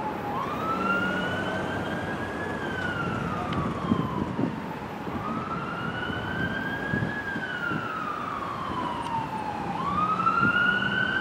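Emergency vehicle siren on a slow wail, its pitch rising for about two seconds and falling for about two and a half, over and over, above a steady low rumble.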